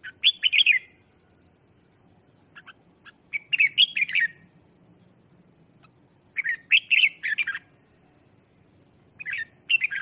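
Red-whiskered bulbul singing in four short phrases of quick, warbling whistled notes, each phrase a couple of seconds after the last. It is a decoy bird's song, used to call in wild bulbuls.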